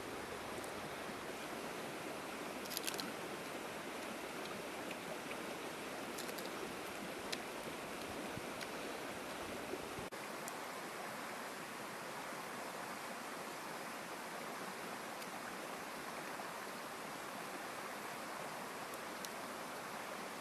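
Steady rushing outdoor background noise, with a few faint sharp cracks in the first half from cooked crab shell being broken apart by hand.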